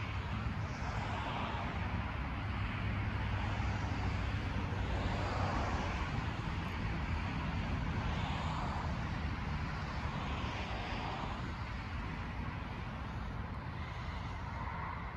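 Steady low rumble of a car moving slowly, with an even haze of road and engine noise that swells softly every few seconds.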